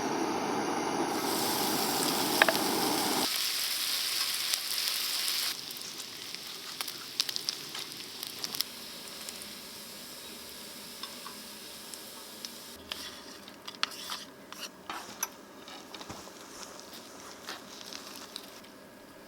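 Food sizzling in a hot pan, loudest over the first few seconds. The sizzle drops abruptly about three seconds in and again about five and a half seconds in, leaving a quieter sizzle with scattered clicks and taps of utensils.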